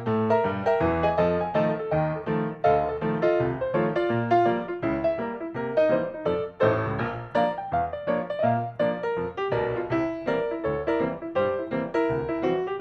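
Background music: a piano playing a steady run of struck notes, about two to three a second.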